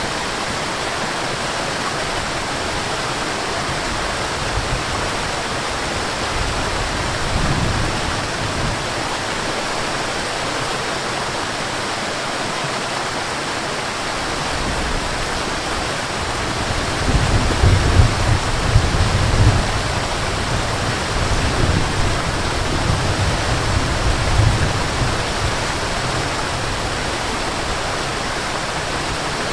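Waterfall rushing in a steady, dense roar of falling water. A deeper low rumble swells for several seconds a little past the middle, then settles back.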